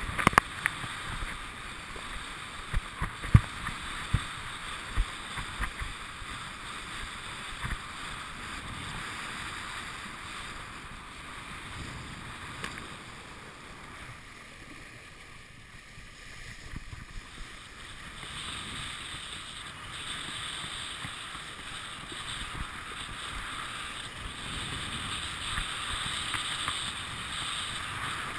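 Kiteboard skimming over choppy water: a steady rush of wind and water, with a run of sharp low thumps over the first several seconds, quieter for a few seconds in the middle.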